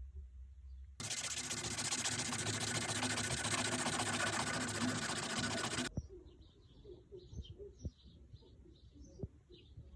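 A power tool runs steadily for about five seconds with a fast, buzzy rattle, starting and stopping abruptly. Afterwards faint bird chirps are heard.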